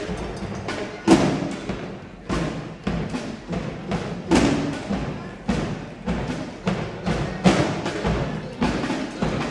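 Drill team drum line percussion: an even beat of heavy, sharp strikes about once a second, with lighter hits between.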